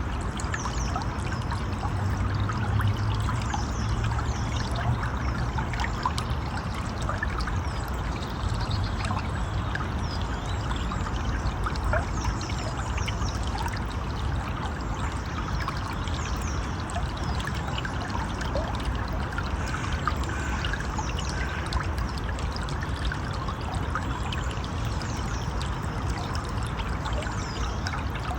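A stream of running water, pouring and trickling steadily, with short high chirps falling in pitch that recur every few seconds throughout.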